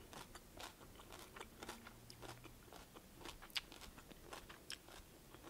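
Faint chewing of a mouthful of kohlrabi-noodle stir-fry, with scattered soft crunches and mouth clicks.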